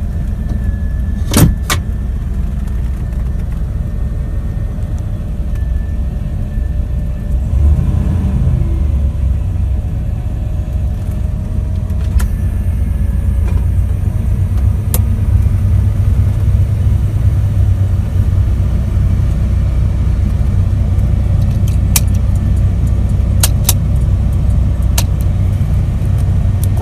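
1981 Chevrolet C10 pickup's engine idling low, heard from inside the cab shortly after a cold start, with no fast idle. A sharp click sounds about a second and a half in and a few more come near the end; the idle is a little louder in the second half.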